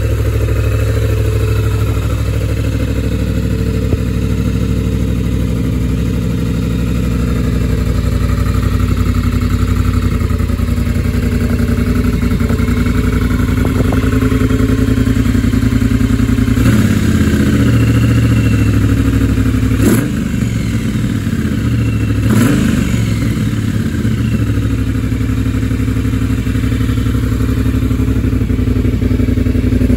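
Triumph Bobber's parallel-twin engine idling through a Jekill & Hyde valved exhaust. Its note rises in a rev about halfway through, and two sharp cracks come a couple of seconds apart soon after, before it settles back to idle.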